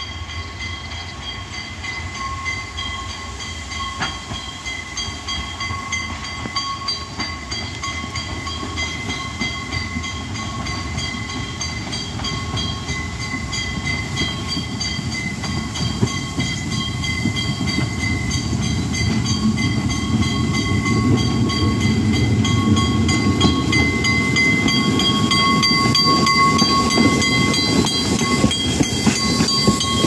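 Narrow-gauge steam locomotive 99 516 working toward the listener with its train, its sound growing steadily louder as it nears. Near the end the locomotive passes close with its carriages rolling by on the rails.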